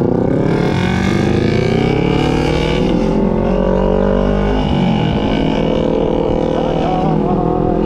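Motorcycle engine pulling through the gears. The pitch climbs, breaks at a shift about three seconds in and again near five seconds, then holds steady.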